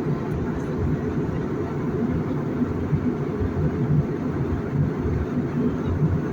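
Airliner cabin noise: a steady low rumble from the engines and the aircraft rolling or flying.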